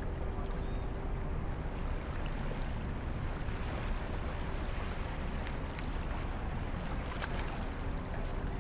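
Steady low rumbling noise with a faint steady hum under it and a few faint ticks in the second half.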